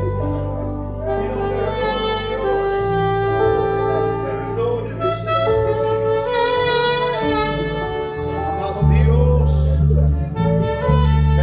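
Slow instrumental worship music from a live church band: held chords and sustained bass notes under a melodic lead line. The bass comes in louder about nine seconds in.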